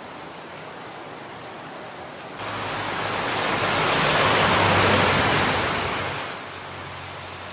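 Heavy rain pouring onto a road. About two seconds in it becomes suddenly louder, and a vehicle passes through the downpour: the hiss of rain and tyre spray swells with a low engine hum, then fades again.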